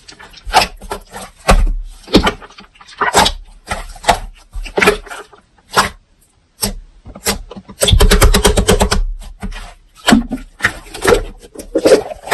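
Slime being squished and worked by hand: irregular wet squelches and pops, about one or two a second, with a quick run of crackling pops about eight seconds in.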